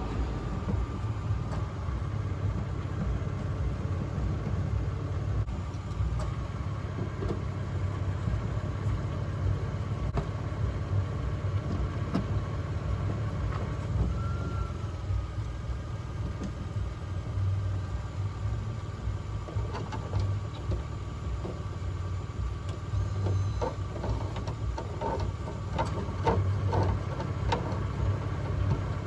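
Engine idling steadily with a low rumble, with a few light clicks and taps near the end.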